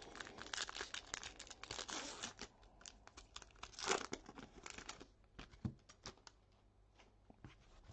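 Wrapper of a 2019 Topps Series 1 card pack being torn open and crinkled, loudest about four seconds in, followed by lighter rustles and clicks as the cards are handled.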